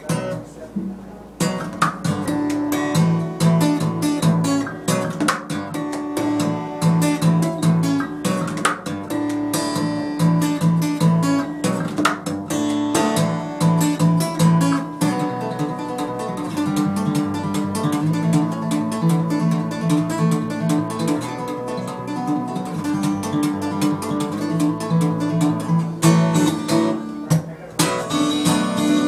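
Taylor acoustic steel-string guitar being played, a steady rhythm of strummed and picked notes that starts about a second in, with a brief break near the end.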